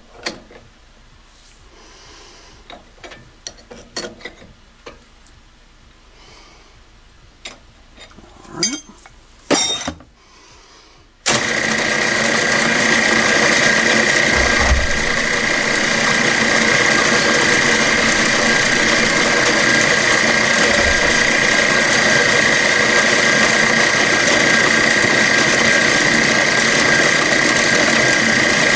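Metal clicks and clanks as the drill chuck is tightened with a wrench. About eleven seconds in, the mill-drill spindle comes in abruptly and runs steadily with a high whine as the end mill cuts into the AR-15 lower receiver.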